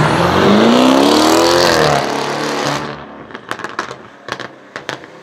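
Widebody BMW M6 Gran Coupé's twin-turbo V8 accelerating hard past, its revs climbing for about two seconds and dipping at a gear change. After about three seconds the sound falls off to a quieter level, with a few short sharp cracks.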